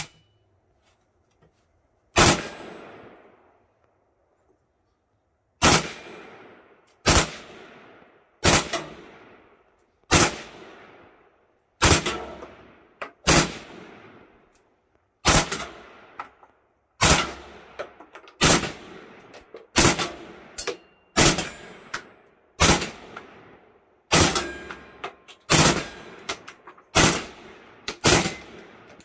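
Galil ACE rifle firing single shots at a steady pace, about one every one and a half seconds, each crack followed by a fading echo.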